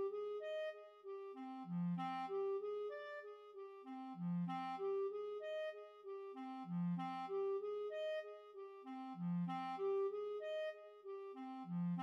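Solo clarinet playing a second-clarinet accompaniment part: the same rising-and-falling eighth-note arpeggio repeats once a bar, about every two and a half seconds, each starting on a low note. The melody part is left out, so that a first clarinet can play along.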